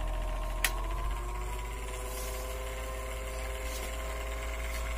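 Electric stand fan motor running with a new run capacitor fitted, now spinning properly: a sharp click of the speed button about half a second in, then the motor's steady hum shifts in pitch as it picks up speed to a higher setting.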